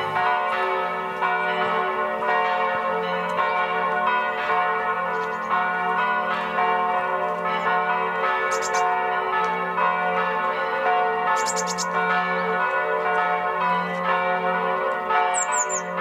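Monastery church bells ringing a full peal, several bells swinging and striking over one another in a dense wash of ringing tones. A bird chirps a few times, and once more near the end.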